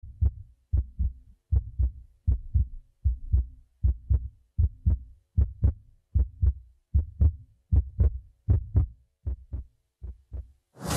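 Heartbeat sound effect: a steady lub-dub double thump, about one pair every 0.8 seconds, growing a little softer over the last two seconds.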